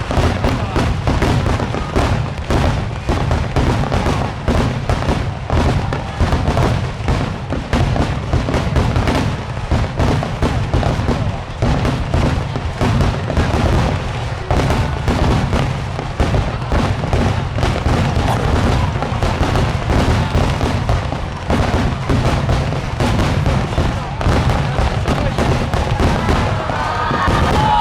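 Dense fireworks barrage: shells bursting in rapid, overlapping bangs, many a second, without a break. Near the end a wavering whistle sounds over the bangs.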